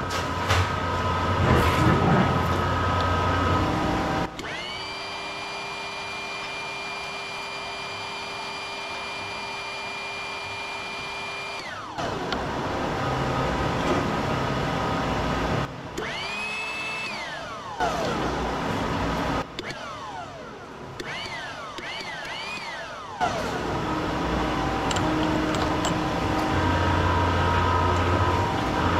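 Electric shop machinery running. Rough mechanical noise with a hum gives way, about four seconds in, to a motor whine that rises, holds steady for about seven seconds and winds down. Several shorter whines then rise and fall in quick succession before the rougher running noise returns.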